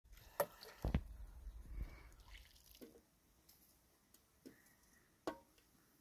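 Water poured from a plastic bottle over tomatoes held in the hands to rinse them, splashing and dripping. There are two sharper knocks in the first second. After about three seconds only a few scattered short taps remain.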